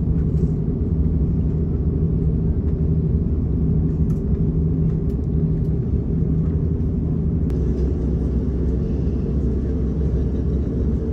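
Steady low rumble of an Airbus A330-900neo taxiing, its Rolls-Royce Trent 7000 engines at low power, heard from inside the passenger cabin.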